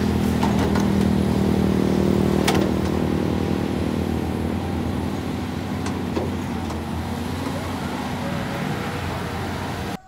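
Diesel engine of a Caterpillar tracked excavator running steadily as it digs, gradually getting a little quieter, with a single sharp click about two and a half seconds in.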